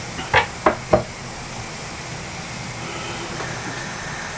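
Three sharp knocks in quick succession, a kitchen utensil rapped against a board or pan as chopped shallots are tipped into the sauce, then a steady low hiss from the gas hob and the simmering pan.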